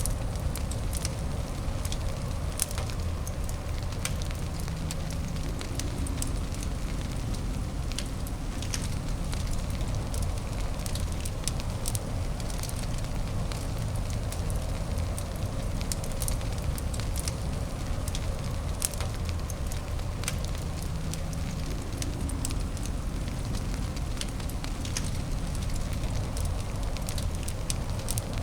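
Fireplace crackling, with frequent irregular sharp pops and snaps over a steady, low-weighted white-noise hiss.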